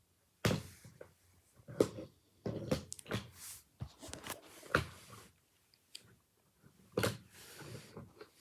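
Irregular clicks, knocks and rustling, like objects being handled, starting about half a second in. The loudest knocks come near 2 and 7 seconds.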